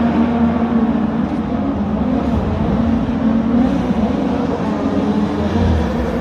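DTM race cars' two-litre turbocharged four-cylinder engines running, a steady low engine drone that wavers slightly, with no distinct single car passing.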